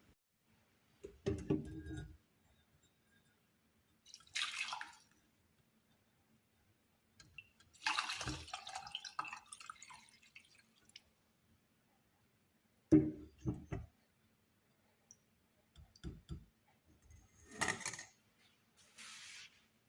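Kitchen sounds: liquid pouring and dripping in short spells, between several separate knocks of dishes or utensils.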